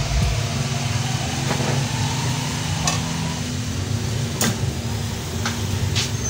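Steady low hum with a few sharp clicks scattered through it; a deeper hum cuts off about half a second in.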